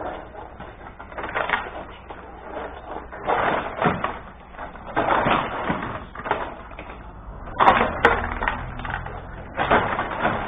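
Benej rod hockey table in play: the control rods sliding and spinning the plastic players, clacking and rattling in irregular bursts, several louder clatters spread through the stretch.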